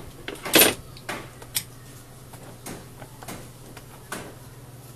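Scattered metal clicks and taps of a screwdriver and small parts being handled on the top of a Bosch GSH 11 E demolition hammer as a lock nut is fitted during reassembly. The loudest clatter comes about half a second in, followed by five or so sparser ticks.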